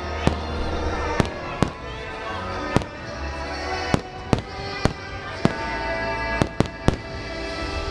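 Firework shells bursting in a display: about eleven sharp bangs at uneven intervals, three in quick succession near the end. The show's music plays continuously underneath.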